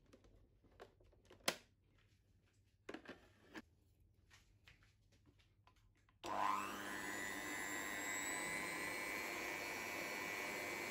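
A few light clicks and knocks, then about six seconds in a Kenwood Chefette mixer's motor starts with a quick rising whine and runs steadily, beating butter and powdered sugar in a covered bowl.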